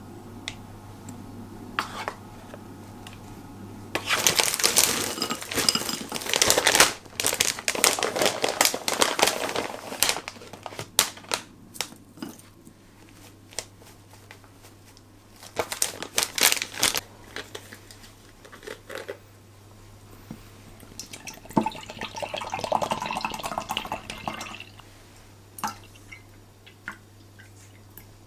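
Breakfast being put together by hand: a spoon scooping yogurt from a plastic tub into a glass bowl, a snack bag crinkling, and granola and nuts pouring into the bowl. It comes in several bursts of rustling and clinking, the longest a few seconds in.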